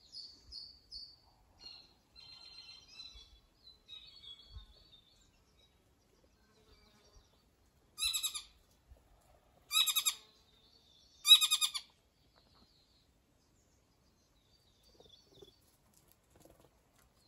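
Forest songbirds: soft, high warbling trills and twitters in the first few seconds, then three loud, harsh, buzzy calls about a second and a half apart.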